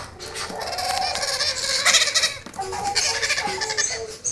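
Blue-headed parrot chicks, about a month old, giving continuous overlapping begging calls.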